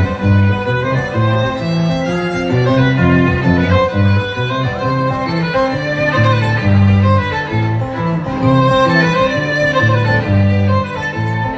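Instrumental break of a Russian rock song: a violin melody over bass and guitar, with no singing.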